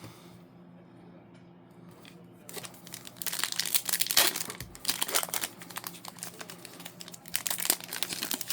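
A trading-card pack's wrapper crinkling and tearing open, starting about two and a half seconds in with dense crackling, loudest a little past four seconds. A faint steady hum runs beneath.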